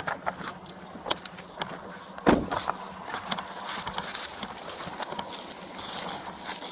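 Scattered clicks and rustling, with one loud thump about two seconds in.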